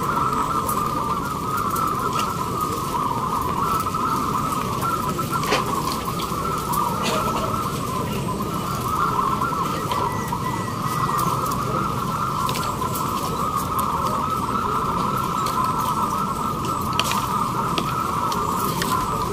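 Many caged zebra doves (perkutut) cooing at once, a dense unbroken chorus of overlapping warbling coos over a steady low background rumble.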